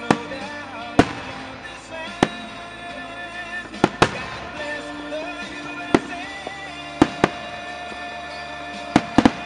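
Aerial firework shells bursting in sharp bangs, about eleven at irregular intervals, with three in quick succession near the end. Music synced to the display plays steadily from a radio underneath.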